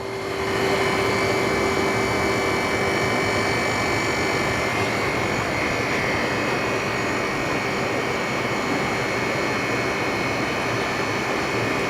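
LCD freezer machine running at its working temperature of about minus 164 degrees: a steady mechanical hum with rushing air noise and a couple of held tones from its refrigeration unit and fans.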